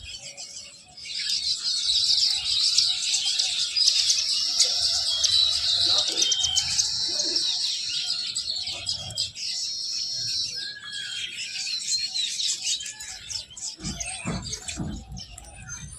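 A flock of small birds chirping and twittering together in a dense, overlapping chorus of high calls, busiest through the first half and thinning out later.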